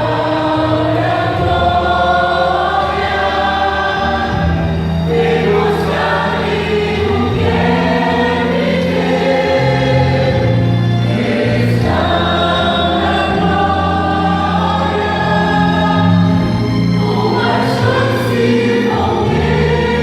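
Church choir singing a Portuguese gospel worship song in several voices, over instrumental backing with sustained bass notes.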